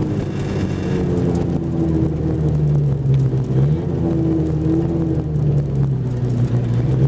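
Car engine heard from inside the cabin while driving, its pitch climbing, dropping sharply about halfway through, then climbing again as the revs change.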